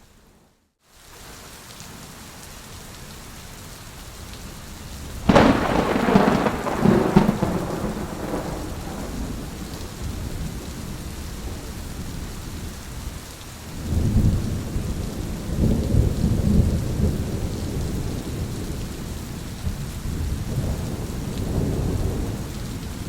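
Steady rain with thunder. After a brief dip to near silence at the very start, a sharp thunderclap about five seconds in rolls off into a rumble. Further rolling rumbles follow from about fourteen seconds on.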